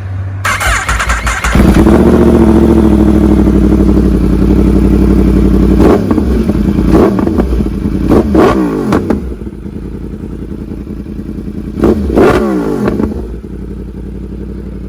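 Yamaha R1 crossplane inline-four through an aftermarket exhaust, held at high revs for a few seconds, then blipped several times, the revs falling back after each blip.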